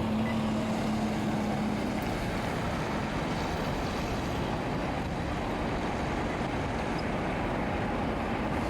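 Steady vehicle engine noise, with a low steady hum that fades out about two seconds in.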